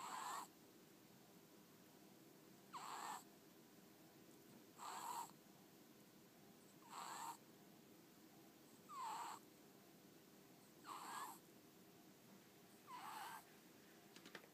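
A sleeping ferret snoring: seven short snores, one about every two seconds, each about half a second long.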